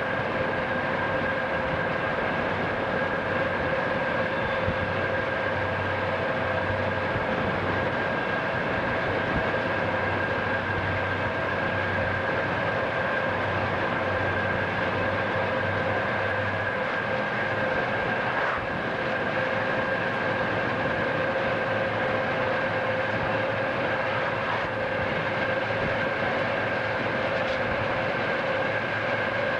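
Southern Pacific freight train's diesel locomotives running at track speed, heard from a car pacing alongside, mixed with the car's steady road and wind noise and a steady high whine.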